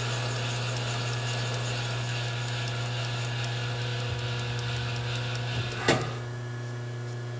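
Metal lathe turning at low speed with a form tool cutting a radius into a steel bolt head: a steady motor hum under a continuous scraping cutting noise. About six seconds in, a sharp click, and the cutting noise stops, leaving the hum.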